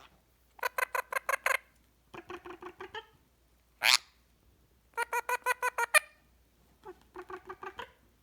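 Indian ringneck parrot giving four quick runs of short pitched beeping notes, about eight a second. Two of the runs are loud and two are softer and lower, with a single sharp rising squeak between them.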